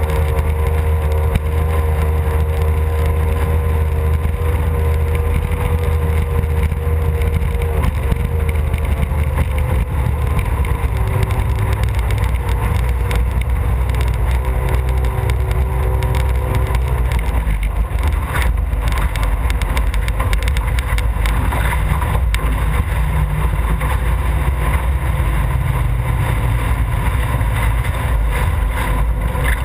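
Mercury racing outboard engine of a COR 2.0 class race boat running steadily at low speed, its pitch easing slightly about ten seconds in, with wind buffeting the microphone.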